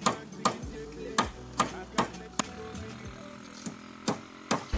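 Hammer driving nails into a wooden plank frame: about ten sharp strikes at a steady two to three a second, with a pause of about a second midway. Background music plays underneath.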